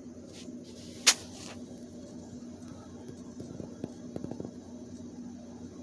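Quiet room with a steady low hum, broken by a single sharp click about a second in and a few soft taps around four seconds in.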